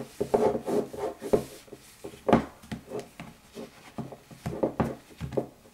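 Wiping the polycarbonate lens of a pair of airsoft fan goggles: a run of irregular rubbing strokes, the loudest a little over two seconds in.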